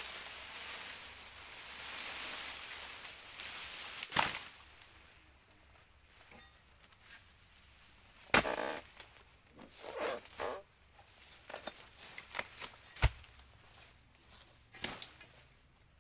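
Insects chirring steadily at a high pitch, with rustling and a few sharp snaps or knocks, the loudest about four, eight and thirteen seconds in.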